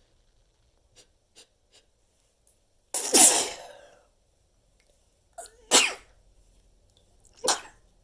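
Three stifled sneezes, held in. The first, about three seconds in, is the loudest and longest, and two shorter ones follow. A few faint clicks come before the first.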